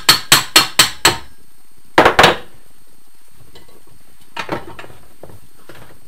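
Hammer tapping out the crankshaft of a Scott two-stroke motorcycle engine: a quick run of sharp metal blows, about four a second, for the first second. Two or three loud metal clanks follow about two seconds in, then a few lighter knocks.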